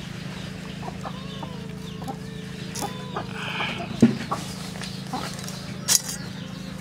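Chickens clucking in short, bending calls, over a steady low hum. Two sharp taps come about four and six seconds in.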